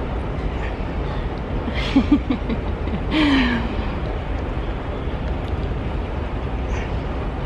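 Steady low background rumble of a large room. Over it, about two seconds in, come a few quick short voice sounds, and just after three seconds a short falling exhaled groan from someone straining at arm wrestling.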